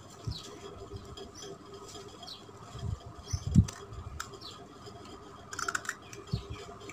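A small knife cutting a raw green mango by hand over a clay bowl, with soft thumps as pieces drop into the bowl, the loudest about halfway through, and a brief clatter a little before the end.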